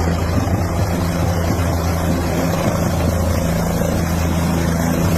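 Helicopter running, a loud steady low drone with a constant pitch.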